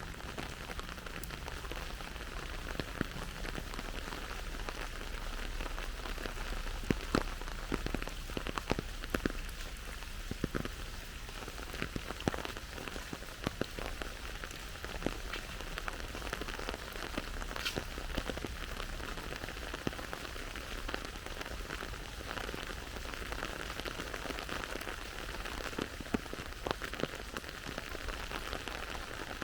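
Steady rain falling, an even hiss with many individual drops ticking sharply close by.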